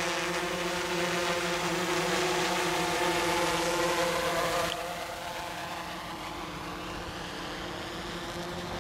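GoPro Karma quadcopter drone's rotors whirring, a steady buzz of several tones over a hiss. It turns quieter about halfway through as the drone moves off.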